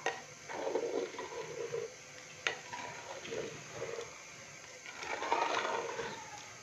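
A slotted spoon stirring rice through water in a clay handi pot: irregular swishing and scraping, with two sharp clicks of the spoon against the pot.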